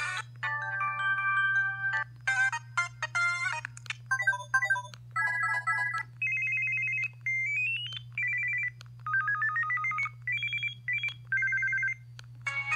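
Samsung SCH-U360 mobile phone playing its ringtones one after another: a string of short, simple electronic melodies, each cut off after a second or two before the next tune starts, some of them rising note by note.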